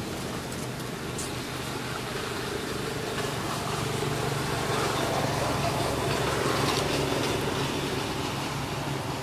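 A motor engine running steadily, swelling louder through the middle and easing off near the end.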